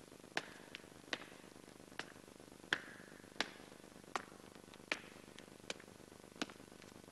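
A slow, slightly uneven series of sharp clicks or knocks, about one every three-quarters of a second, some with a short ringing tail, over a faint steady hiss.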